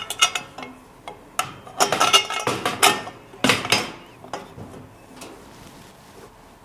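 Metal bolts, washers and cart parts clinking and knocking together as bolts are worked into the front axle assembly. There is a cluster of sharp clicks and rattles for about four seconds, then only a few faint ticks.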